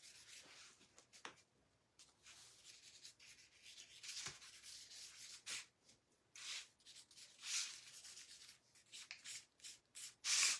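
Sandpaper rubbing over a painted picture frame in short, irregular strokes, distressing the paint. One louder stroke comes near the end.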